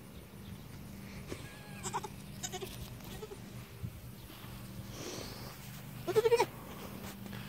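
Boer goat kid bleating: a few short faint calls about two seconds in, then one loud, quavering bleat about six seconds in.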